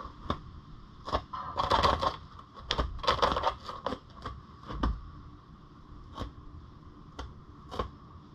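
Netherland Dwarf rabbit scratching and tearing at a corrugated cardboard scratcher, sounding muffled through the camera's case. There are two dense bursts of crunching and ripping about one and a half and three seconds in, then single scrapes every second or so.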